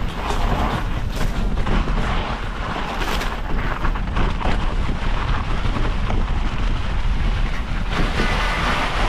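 Wind buffeting the microphone over the rumble and rattle of a bike rolling over a trail, a steady rough noise with strong low rumble.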